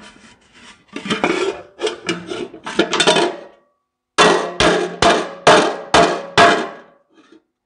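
Ball-peen hammer beating the dents out of a sheet-metal Ford tractor air cleaner cover laid over a cast-iron differential housing: six sharp, ringing metal blows about two a second in the second half. Before them comes some scraping of metal on metal as the cover is shifted on the housing.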